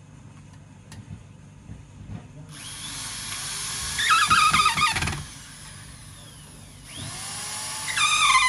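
Power drill running against a wooden armchair frame in two runs of about two to three seconds each: the motor whines up to speed, then its pitch wavers and sinks under load near the end of each run.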